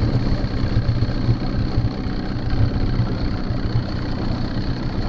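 Small boat's outboard motor running steadily as the boat moves off, pushing up a wash at the stern.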